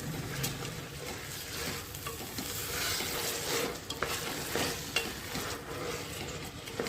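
Food sizzling as it fries in a pan while it is stirred, with a few sharp clinks of the spoon against the pan.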